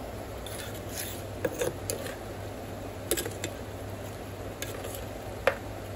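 Metal spoon stirring a thick egg and potato curry in an earthenware pot, with scattered clinks and scrapes against the pot over a steady low hum.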